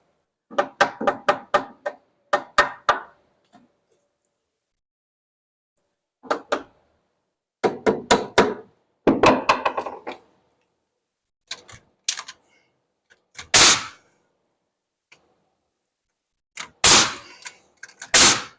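Hammer blows on wood framing: quick runs of several strikes each, like nails being driven, with a few heavier thuds near the end.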